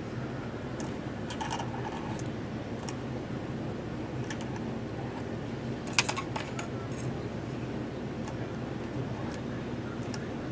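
Small ticks and light scratches of a metal quill pen nib working on a glass sheet, with one sharper click about six seconds in, over a steady low room hum.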